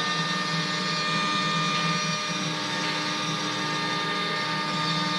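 Small CNC engraving machine running a carving job: a steady high spindle whine over a grinding hiss, with a fluttering low hum.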